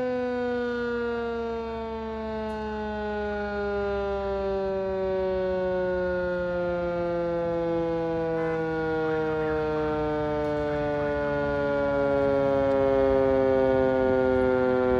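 Fire company house siren sounding one long wail that drops slowly and steadily in pitch, growing a little louder near the end: the alert calling the company out to a fire call.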